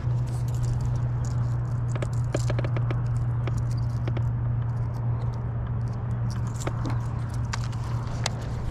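Boat's electric trolling motor running with a steady low hum, with scattered light clicks and taps from handling the lure and the baitcasting reel during a cast.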